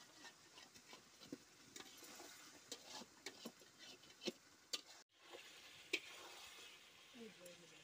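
Metal spatula stirring chicken curry in a metal pan over a wood fire, scraping and clicking against the pan at irregular intervals over a faint sizzle.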